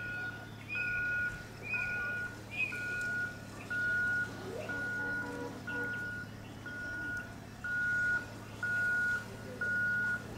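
Electronic warning beeper sounding a steady high beep about three times every two seconds, over a steady low hum. For the first few seconds a second, higher beep alternates with it.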